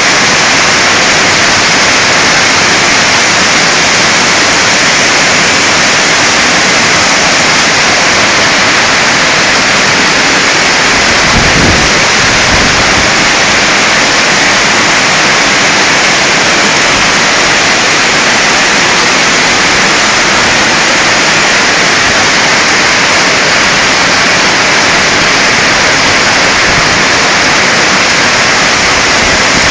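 Hail and rain pouring down in a loud, dense, steady hiss, with a brief low rumble about twelve seconds in.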